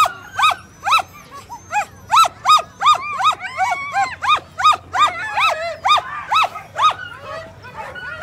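Sled dogs in a racing team barking and yelping in quick, overlapping high calls, about two a second: the excited clamour of dogs eager to run at the start line.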